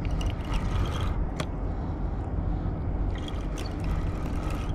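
Spinning reel being cranked to bring in a hooked fish: faint mechanical clicks over a steady low rumble.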